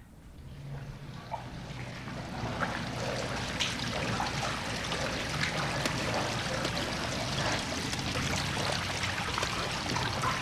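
Water trickling and running steadily, with scattered drips and small splashes, rising out of quiet over the first two seconds. A faint low hum lies underneath.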